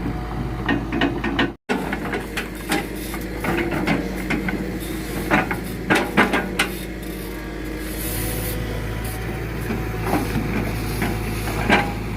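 Excavator engine running steadily while rubber-wood logs knock and clunk against one another as they are handled, with a cluster of louder knocks near the middle.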